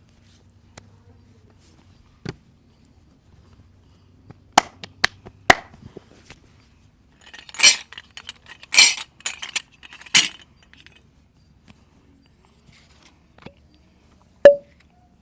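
Percussive massage sounds from hands working a client's head and back: a few quick sharp clicks, then three longer, noisier hits about a second apart, and near the end one sharp crack with a short ring, the loudest of all.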